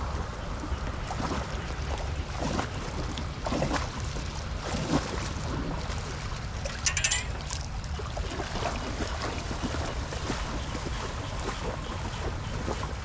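Wind buffeting the microphone with a steady low rumble over shallow floodwater. Water splashes now and then as hands work at a blocked street drain and feet wade through the water, with a sharper splash about seven seconds in.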